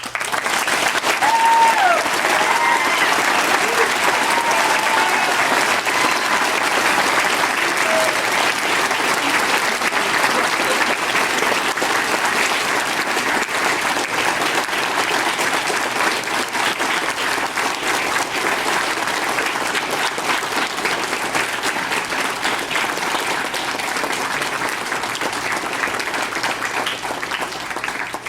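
A large audience applauding steadily for nearly half a minute, with a few cheers or whoops in the first few seconds, dying away at the end.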